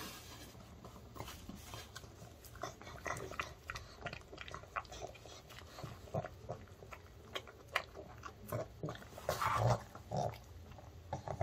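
Pug eating and licking up bites of homemade dog-safe chicken: a run of irregular wet smacks, licks and chewing clicks, with a louder burst about nine and a half seconds in.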